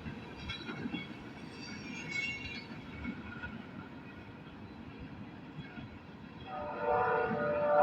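Train rumbling at a railroad crossing, then a locomotive's air horn starts about six and a half seconds in, a loud chord of several steady notes that swells near the end.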